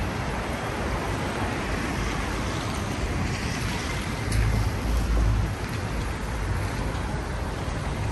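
Steady hiss of rain and wet traffic on a city street, with wind gusts rumbling on the microphone about four to five seconds in.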